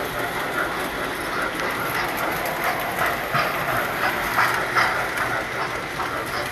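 Tinplate toy trains running on metal track: a steady rattle with irregular clicking as the wheels pass over the rail joints.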